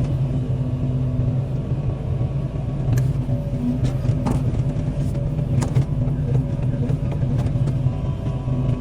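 Excavator's diesel engine running steadily, with a few sharp cracks and knocks now and then.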